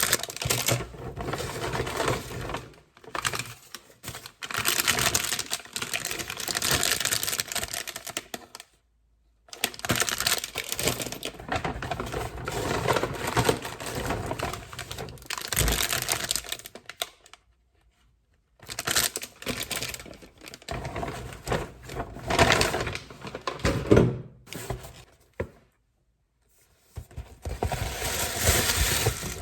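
Close-up rustling, crinkling and clicking of shopping packaging being handled, in several short stretches broken by sudden silences.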